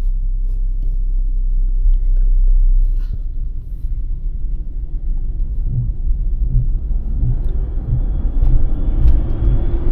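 Car driving, with a steady low rumble of engine and road noise; the engine's pitch rises and then falls near the end.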